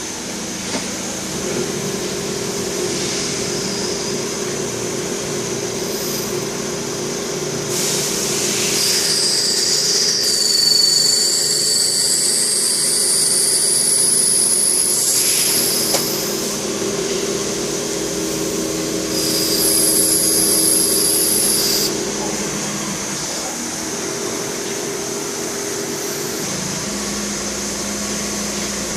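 Hanwha XD26H Swiss-type CNC sliding-headstock lathe running a machining cycle: a steady motor hum under high spindle whines. A long whine rises in pitch near the middle, and a shorter high whine comes a little later.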